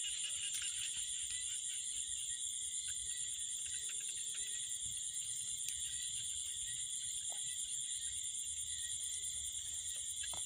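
Night chorus of crickets and other insects: steady, high-pitched trilling in several pitch bands, with a few faint clicks.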